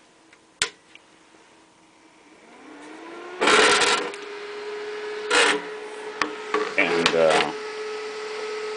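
Cooling fan of a 36 V, 6 A DC power supply spinning up after switch-on: its hum rises in pitch over about a second and a half, then holds steady. A sharp click comes about half a second in, and several loud bursts of rubbing and knocking follow as the metal case is handled and turned.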